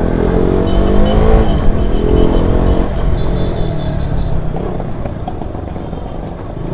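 KTM RC 200's single-cylinder engine revving under hard acceleration, its pitch climbing and dropping over the first three seconds as it pulls through the gears, then easing off with the level falling toward the end.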